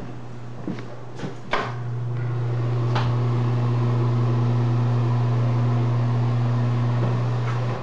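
Commercial HVAC equipment running with a steady low hum that grows louder about a second and a half in and drops back near the end. There are a few sharp clicks in the first three seconds.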